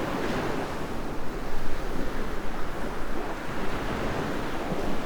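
Ocean surf breaking and washing on a beach, a steady rushing with gentle swells, with some wind on the microphone.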